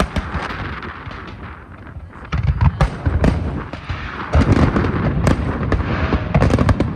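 Fireworks display: rapid booms and crackling bursts, thinning out briefly about two seconds in, then a dense barrage of deep booms and crackles that grows heavier about four seconds in.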